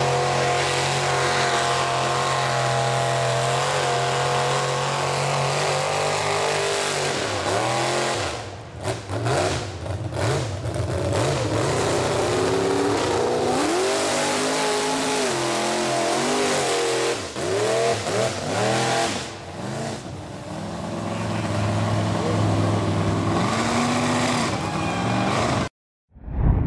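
Chevy mega mud truck's engine revving hard in the mud pit, its pitch climbing and dropping again and again as the driver works the throttle. The sound cuts off suddenly near the end.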